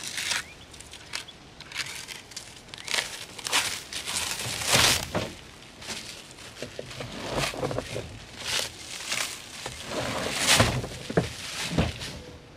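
Plastic wrapping crinkling and rustling in irregular bursts as it is pulled off a rolled rubber truck-bed mat, with a couple of dull thumps near the end as the rolled mat is handled on the tailgate.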